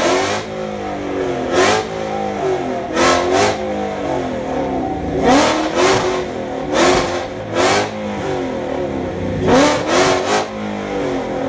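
Ford Mustang V8 revved hard at full throttle, about seven times, the pitch climbing and falling back between each; it reaches about 7,000 rpm.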